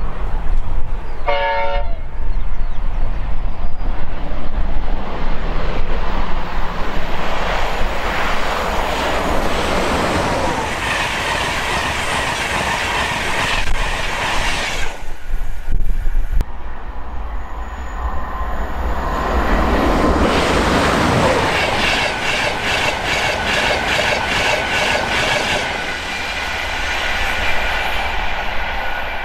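InterCity 225 trains hauled by Class 91 electric locomotives going by: a short horn blast about a second and a half in, then the rush of the passing train with wheels clicking over rail joints. After a lull about fifteen seconds in, a second train passes with the same rushing and a rapid run of wheel clicks.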